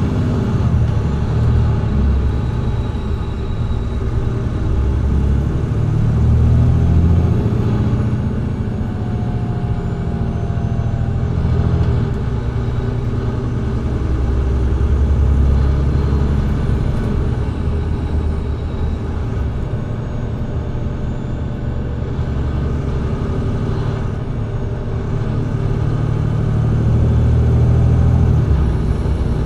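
Engine of a Mercedes-Benz Citaro C2G hybrid articulated bus with a Voith automatic gearbox, heard from inside the cabin just in front of the engine while the bus drives. It is a heavy rumble that swells and eases several times as the revs rise and fall.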